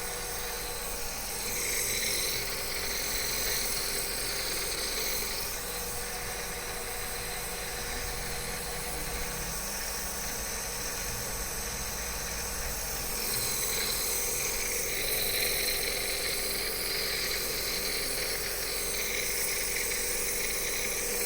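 Nebulizer air compressor running steadily: a constant motor hum under a hiss of air, the hiss swelling and easing every few seconds.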